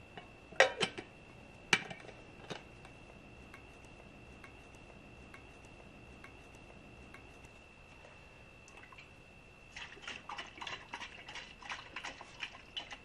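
A stainless steel kids' water bottle and its plastic lid being handled: two sharp clicks about half a second and about two seconds in as the lid goes on, then a quick run of light clicks and ticks from about ten seconds in. A faint steady high whine lies underneath.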